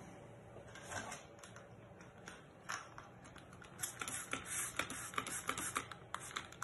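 Paper cleaning cloth rustling as it is handled, then a rapid run of squirts from a trigger spray bottle of alcohol onto the cloth over the last few seconds, with the trigger clicking.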